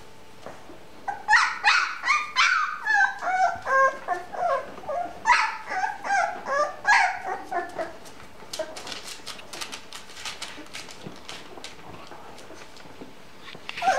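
Bouvier des Flandres puppy whimpering and yipping in a quick string of short, high calls for several seconds. The calls then give way to light clicks and rustling of newspaper underfoot, and one more call comes near the end.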